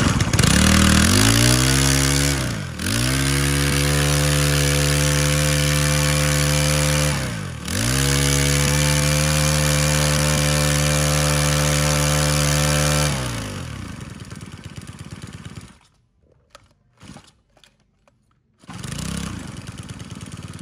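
Makita 26cc four-stroke brush cutter engine running at high revs. Twice its pitch drops sharply and climbs back. It stops about 13 seconds in and winds down.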